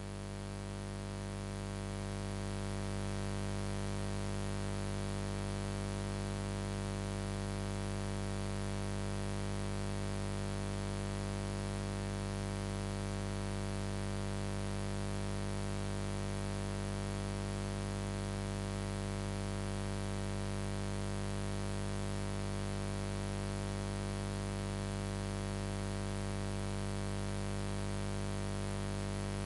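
A steady electronic drone chord, like a synth pad, swells in over the first few seconds and then holds unchanged, with a light hiss on top.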